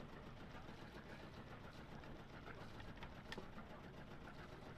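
Faint, steady low hum of a sailboat's inboard engine idling while the mooring is picked up, with a single sharp click a little over three seconds in.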